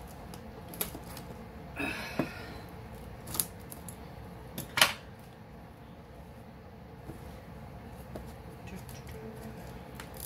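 Handling noise from a cardboard diamond-painting kit box being shifted about: scattered light taps and clicks, a brief scrape about two seconds in, and one sharper click just before five seconds, over a faint steady room hum.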